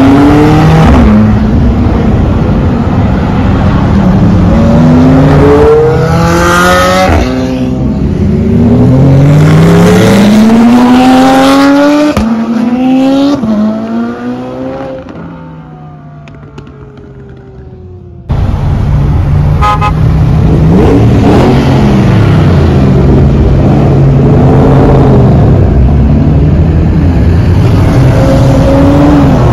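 Sports cars accelerating hard away one after another, their engines revving up through the gears in repeated rising sweeps. One car fades into the distance about 15 seconds in, then a sudden cut brings back loud engine noise as more cars rev and pull away.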